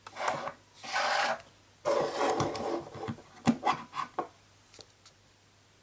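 Plastic toy pieces sliding and scraping across a tabletop in three noisy rubs, followed by a few light plastic clicks as they are set down.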